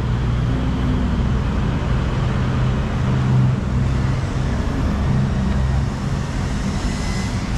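Steady low engine hum and road noise of a motor vehicle in traffic.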